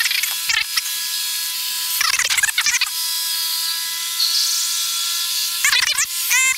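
Cessna 172's engine running in the climb, heard through the aviation headset intercom as a steady, buzzy drone of several high constant tones. Short garbled, voice-like bursts break in about half a second in, around two seconds, and near the end.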